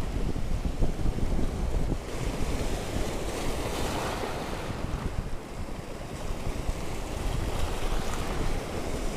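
Sea waves washing and breaking against a rocky breakwater, with wind rumbling on the microphone; one wash swells louder about four seconds in.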